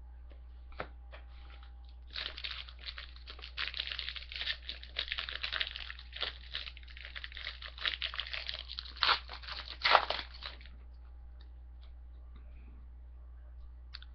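Foil wrapper of a trading card pack being torn open and crumpled, a dense crinkling and crackling from about two seconds in until near the end, with a few single clicks before and after.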